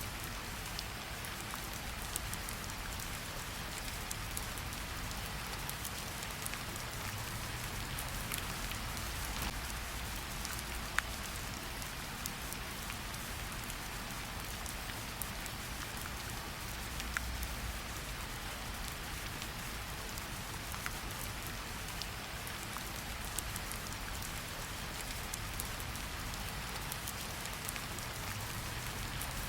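Steady rain falling, with scattered sharp ticks and pops over the hiss and a low rumble underneath.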